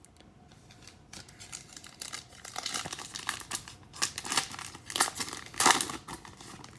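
Foil wrapper of a trading-card pack crinkling and tearing as it is opened by hand, in irregular crackly bursts with the loudest rip near the end.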